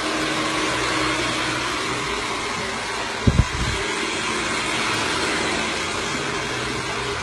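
Handheld hair dryer running steadily with a loud, even rush of air and a low motor hum. A brief low thump comes a little over three seconds in.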